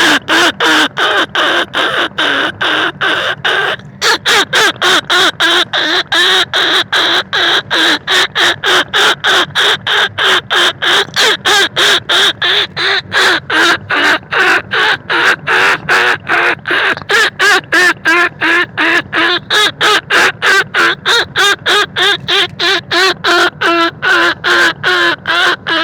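Rat-hunting lure call: a fast, unbroken run of short squeaky calls, about three a second, meant to mimic field rats and bandicoot rats and draw them in. It breaks off briefly about four seconds in.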